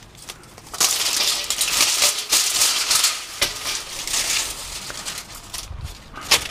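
Thin aluminum mini-blind slats rattling and clicking against one another as they are pulled off the ladder strings. There is a dense clatter for a few seconds, then scattered clicks and one sharp click near the end. The slats are sticky and stuck together.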